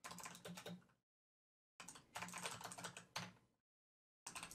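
Typing on a computer keyboard: quick runs of keystrokes in three bursts, the longest about two seconds in the middle, with dead silence between them.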